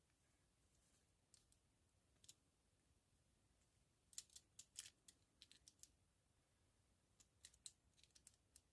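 Faint, scattered metallic clicks and ticks of a lock pick and tension wrench working inside a double-locked handcuff's lock, in small irregular clusters.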